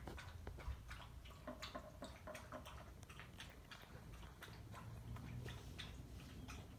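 Faint, irregular clicks and ticks from a dog moving about, a few every second, over a low hum.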